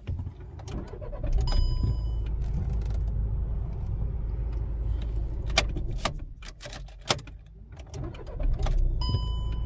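Volkswagen engine started with the key in a repaired ignition key cylinder: a short electronic chime, then the engine runs steadily. About seven and a half seconds in it stops; sharp key clicks and jangling come before, and near the end another chime and the engine running again.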